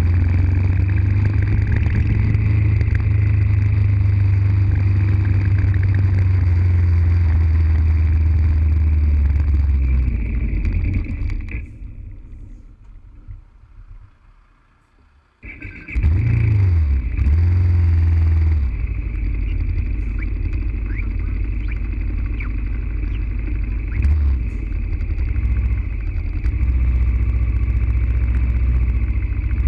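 BMW F650GS motorcycle engine running steadily under way, with wind noise. About eleven seconds in the sound fades away almost to silence for around four seconds, then comes back with a brief rise and fall in engine pitch before settling into a steady drone again.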